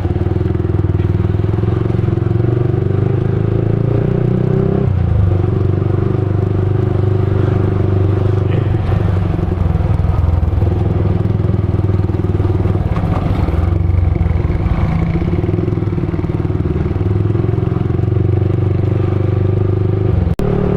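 Motorcycle engine running steadily while riding, its drone shifting slightly in pitch a few times. There is a brief drop-out near the end.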